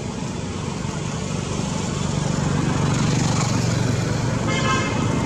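A motor engine droning steadily, growing louder over the first few seconds. A brief high-pitched squeal sounds about four and a half seconds in.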